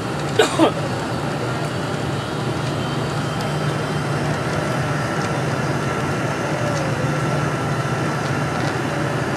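Steady roar of a Boeing 747-400's engines and airflow heard inside the passenger cabin on final approach. Two short, sharp louder sounds come about half a second in, and a faint steady whine sits over the roar through the middle.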